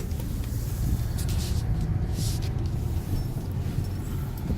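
Car cabin noise while driving: a steady low rumble of engine and road, with a few short stretches of hiss.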